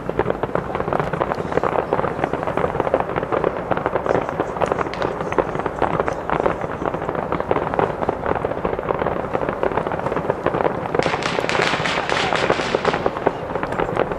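Fireworks display: dense, rapid crackling of bursting shells and crackers. A brighter, sharper flurry of crackle comes about eleven seconds in and lasts about two seconds.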